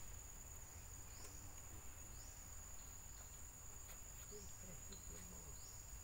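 Forest insects: a steady high-pitched drone, with a short rising chirp repeating about once a second.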